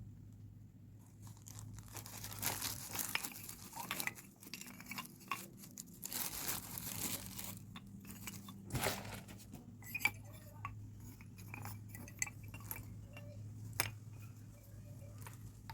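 Clay pots and dishes being unpacked and handled: rustling and crunching of packaging, with light clinks and knocks of earthenware against each other. A steady low hum runs underneath.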